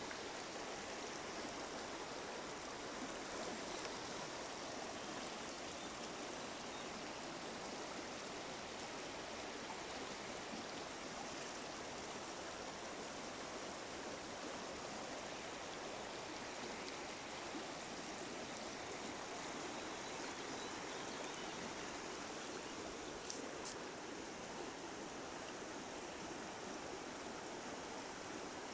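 Small woodland river flowing steadily, its water rushing and babbling over stones and shallow riffles.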